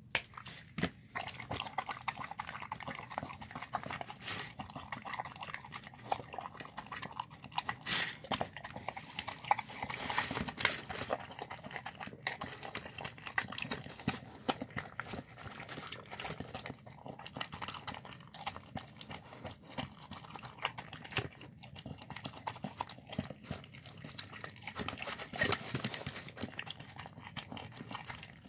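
A bulldog eating chicken and rice from a plastic tub: a dense, irregular run of wet chewing and smacking with many sharp clicks and knocks.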